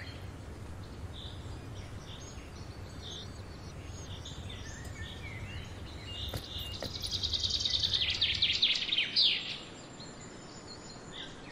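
Small birds chirping on and off over a low outdoor rumble. A louder, rapid run of high chattering notes comes from about six and a half to nine and a half seconds in, and the low rumble drops away near the end.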